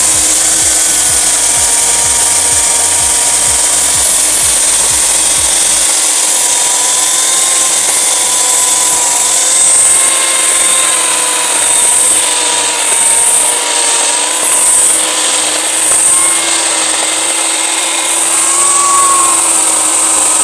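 Oregon CS1500 15-amp corded electric chainsaw running steadily with a high whine as its 18-inch chain cuts through a dry log. The pitch and loudness waver slightly in the middle of the cut as the bar bites into the wood.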